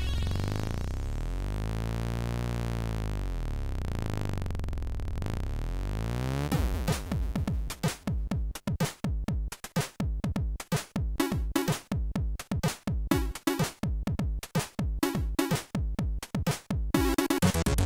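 Commodore 64 chiptune from an emulated 8580 SID sound chip: a held, sweeping drone for about the first six seconds, then a choppy electronic drum beat of quick stuttering stabs.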